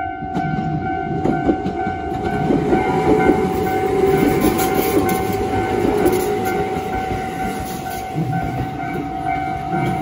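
Electric commuter trains rumbling and clattering over the rails through a level crossing, loudest a few seconds in, while the crossing's electronic warning alarm keeps ringing in a steady tone.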